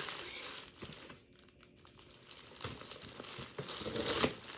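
Packaging being crinkled and pulled apart by hand while a handbag is unwrapped. It pauses briefly after about a second, then resumes, loudest near the end.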